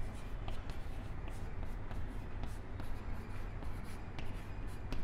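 Chalk scratching and tapping on a chalkboard as words are written: a quick, irregular run of short strokes and taps, over a low steady hum.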